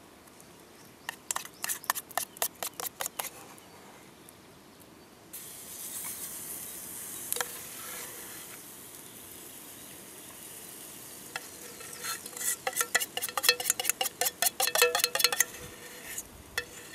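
A metal spoon clinks rapidly against a metal pot, stirring flour-and-water batter. About five seconds in, a steady sizzle starts suddenly as batter hits the hot frying pan over the wood fire. Near the end the spoon clinks fast in the pot again while the sizzle goes on.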